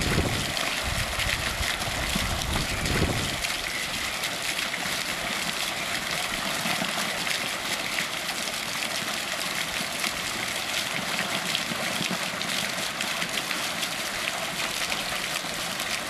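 Steady rush of running water, with a few low bumps in the first three seconds.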